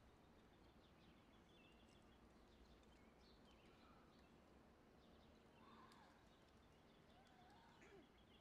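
Near silence of an open-air gathering, with faint bird chirps and a few short gliding calls.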